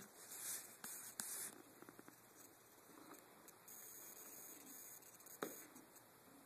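Near silence in a small room: a couple of soft rustles in the first second and a half, a faint high steady whine for about a second and a half in the middle, and a single sharp click near the end.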